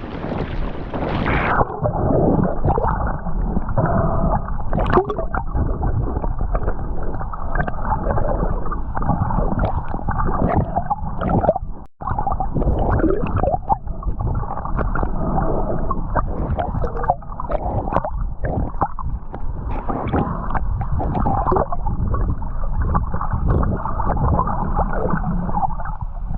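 Muffled water noise through a submerged camera: churning, gurgling water and bubbles, with the sound dulling sharply about a second and a half in as the camera goes under.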